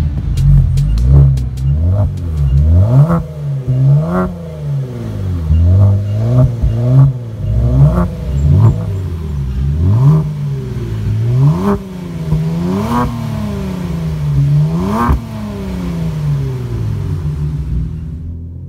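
Kia Stinger GT's 3.3-litre twin-turbo V6 breathing through a Kinney's Street Demon performance exhaust, free-revved from idle again and again: each blip rises sharply in pitch and drops back. Near the end the engine settles back to a steady idle.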